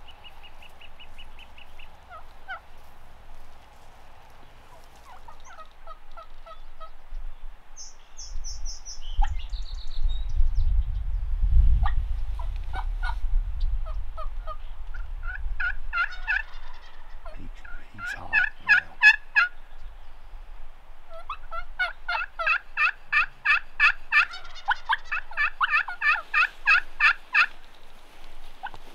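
Merriam's wild turkeys calling: several runs of rapid, repeated notes, including gobbling, with the longest run near the end. A low rumble swells and fades a few seconds in.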